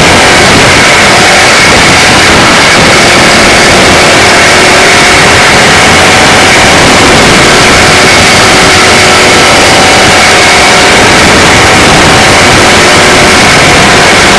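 Small race car engine running hard and steady at racing speed, heard loud from an on-board camera riding in the car.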